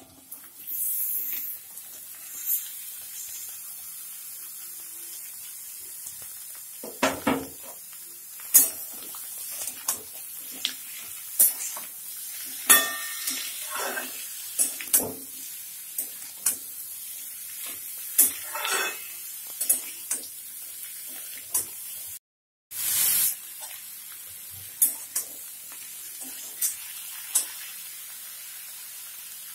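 Sliced pointed gourd and potato frying in oil in a pan, a steady sizzle with a louder rush about a second in. A metal spatula stirring and knocking sharply against the pan many times. The sound cuts out for a moment around the 22-second mark.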